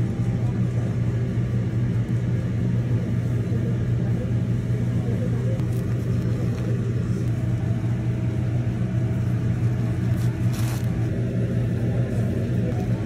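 Steady low machine hum with an even drone, unchanging throughout; a short hiss-like noise comes about ten seconds in.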